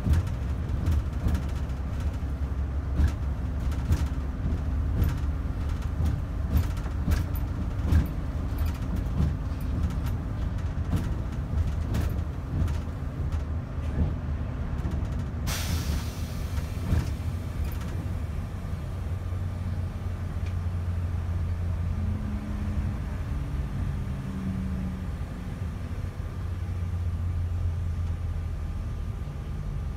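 Greyhound bus running on the road, a steady low engine and road rumble with frequent knocks and rattles in the first half. About halfway there is a short hiss of air from the air brakes, and later the engine's pitch holds steadier.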